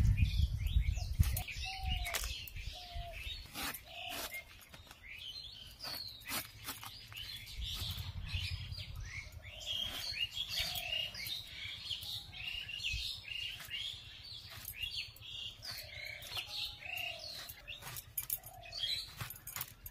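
Pieces of raw jackfruit splashing into a steel bowl of water at the start, then the short sharp clicks of a boti blade cutting jackfruit, over steady bird chirping and a bird's short call repeated about once a second.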